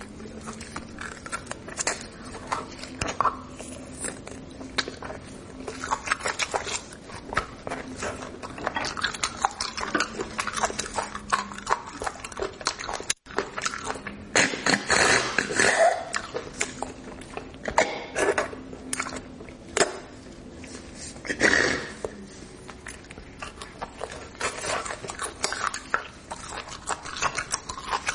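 Close-miked eating of spicy bone marrow: wet mouth smacks, sucking and chewing in irregular quick clicks, with louder slurping clusters now and then.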